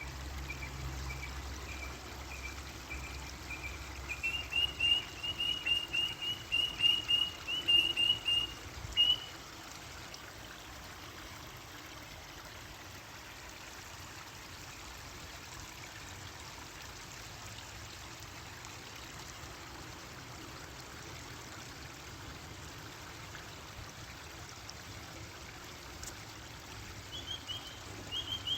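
A bird giving a long series of short, high chirps, faster and louder as it goes, stopping about nine seconds in, then starting again near the end. Under it, a steady trickle of running water.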